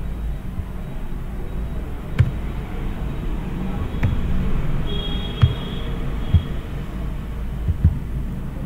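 Computer keyboard and mouse clicks, a handful of scattered knocks and taps, over a steady low hum.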